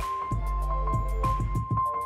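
Background music: a beat over deep bass notes with a high tone held throughout.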